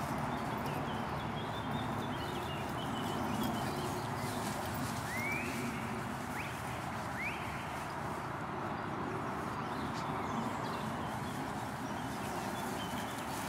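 Two dogs, a Hungarian Vizsla puppy and a larger dog, romping and wrestling in tall grass: a steady rustling noise, with three short, high rising squeaks about halfway through.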